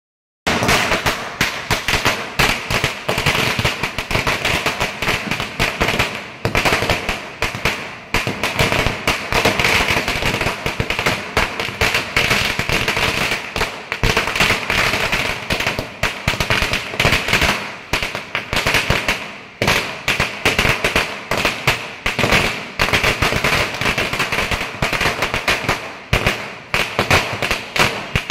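Firecrackers going off on the road in a rapid, unbroken run of sharp bangs, several a second, with crackling between them.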